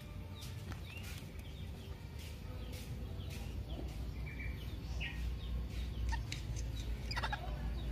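Chickens clucking with scattered short high chirps from small birds, over a low rumble that grows louder about five seconds in.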